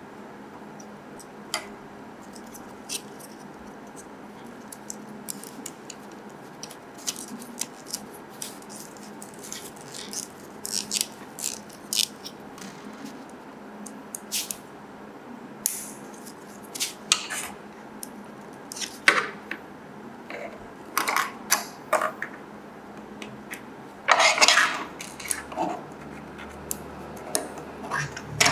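Hard plastic model-kit parts clicking and clattering as they are handled and fitted onto a Mini 4WD chassis. The clicks are sparse at first and come more often later, with a dense burst of rattling clicks a few seconds before the end.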